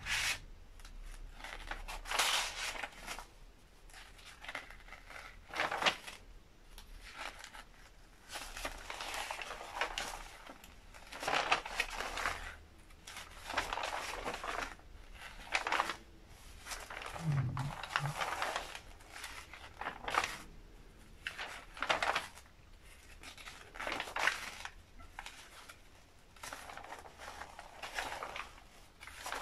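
Heavy paper pages of a large photocopy artist's book being turned by gloved hands: a page rustles and crinkles over every one to three seconds, some pages landing with a sharper slap.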